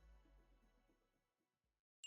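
Background music with a beat fading out to silence near the end.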